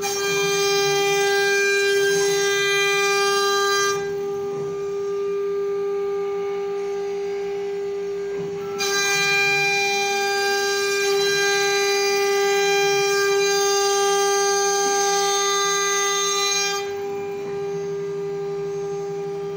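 CNC wood router's spindle whining at a steady pitch while its bit cuts a fretwork pattern into a wood panel. The cutting noise grows louder and harsher for the first four seconds and again from about nine to seventeen seconds, easing in between as the bit cuts more lightly.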